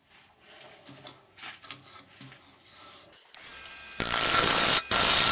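A few soft knocks and handling sounds, then about three and a half seconds in a wood lathe's motor starts with a low hum, and from about four seconds a turning tool cuts the spinning madrone bowl: a loud, steady shaving noise with a brief break.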